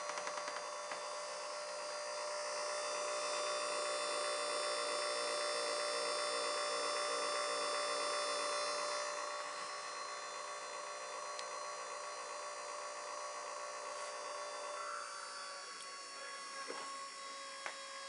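Small 12-volt DC motor running steadily as a load on a battery, drawing about 1.2 A: a whine of several steady tones. It grows a little louder about two seconds in and eases back about halfway through.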